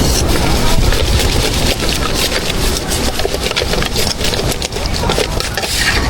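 Cleaver chopping braised food on a wooden chopping block: a run of irregular sharp knocks over a steady low background rumble.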